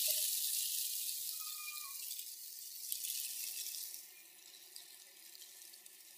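Gusting wind, heard as a rustling hiss of blown petals and foliage. It dies down about four seconds in, leaving a faint hiss with a few light ticks.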